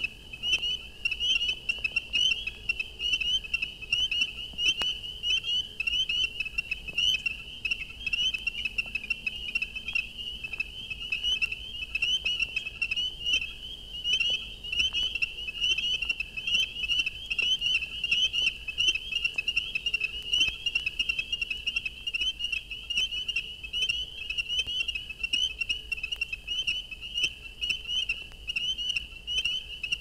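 A sustained winter chorus of spring peepers and ornate chorus frogs: many frogs calling at once in a dense, steady run of short, high peeping notes, played back from a vinyl record.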